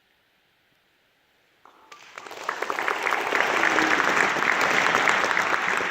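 Near silence, then audience applause breaks out a little under two seconds in and quickly swells to steady clapping.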